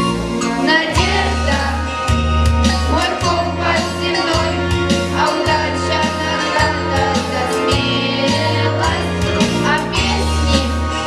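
A song: singing over an instrumental backing track with a steady bass line.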